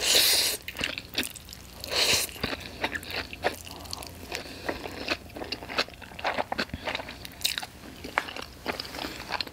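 A person slurping pad thai noodles off chopsticks, loudest right at the start and again about two seconds in. Close-up chewing follows, with many small wet smacks and clicks of the mouth.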